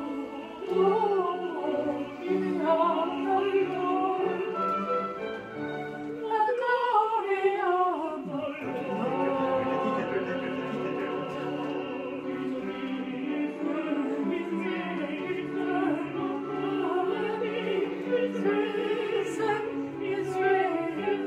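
Operatic classical music: a singing voice over an orchestra, with a long falling run of notes about seven seconds in.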